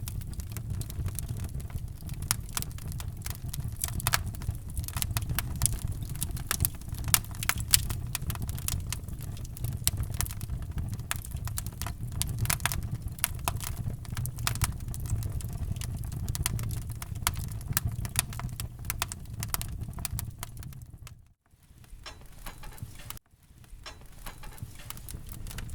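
Wood fire crackling in a fireplace: a dense run of pops and snaps over a low steady rumble. It cuts out briefly twice near the end and comes back quieter.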